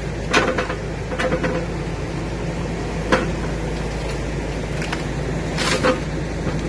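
Caterpillar backhoe's diesel engine running steadily while its boom and thumb work a fallen tree, with several short sharp cracks and knocks of branches breaking and the attachment striking wood.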